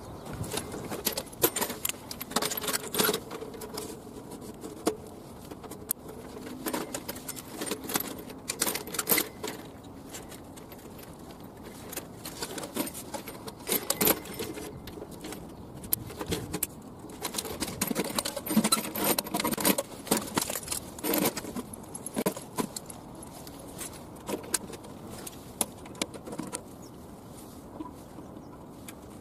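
Irregular metallic clinks, clacks and rattles of a folding metal fishing platform being unfolded and its legs set and adjusted.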